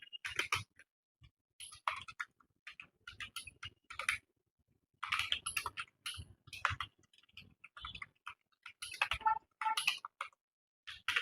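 Computer keyboard being typed on fast in uneven bursts of key clicks, with brief pauses between runs of words.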